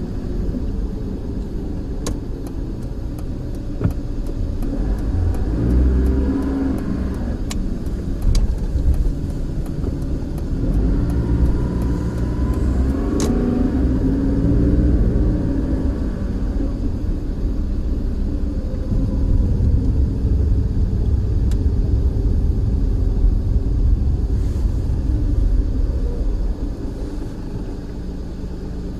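Car driving, heard from inside the cabin: steady engine and road rumble, with the engine note rising as it accelerates, about five seconds in and again around twelve seconds in. A few sharp clicks sound over it.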